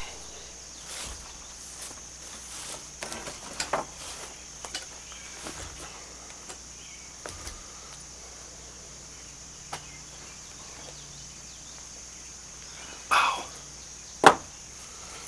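Steady high-pitched insect chirring, typical of crickets, with scattered light clicks and knocks and two louder knocks near the end.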